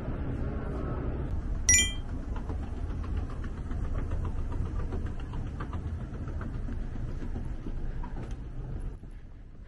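Steady low rumble, with one short bright ringing tone about two seconds in and faint light ticks after it; the rumble drops away near the end.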